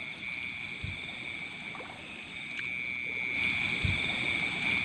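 A steady high-pitched chorus of night creatures, with dull low sloshing thumps twice as feet wade through knee-deep paddy water and mud.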